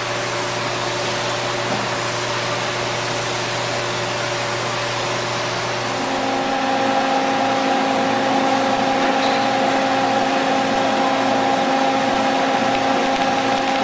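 Radyne induction heating system running under power: a steady hiss with a hum of several steady tones. About six seconds in, the hum changes pitch and grows slightly louder.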